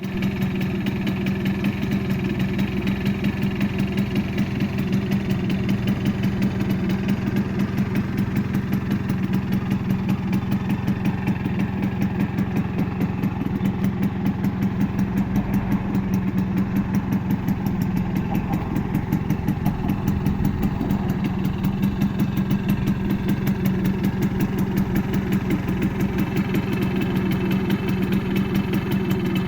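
Simson S51B moped's 50 cc single-cylinder two-stroke engine idling steadily, with an even, rapid exhaust pulse and no revving.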